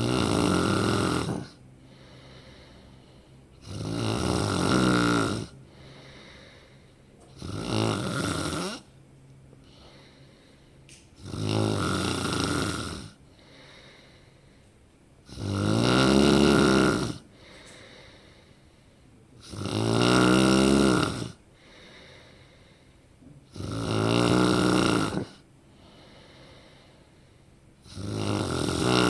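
A person snoring loudly and rhythmically, about eight snores, one every four seconds or so. Each snore is a rough, pitched rattle of about a second and a half whose pitch wavers, with a soft breath between snores.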